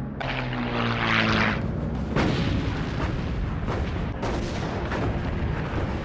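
A propeller warplane's engine passing in a loud rushing swell in the first second and a half, followed by sharp anti-aircraft shell bursts, the strongest about two and four seconds in.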